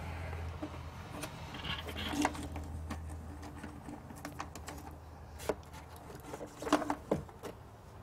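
Scattered small clicks and rustles of electrical wires and spade connectors being handled and pushed on at a boat switch panel, over a low steady hum.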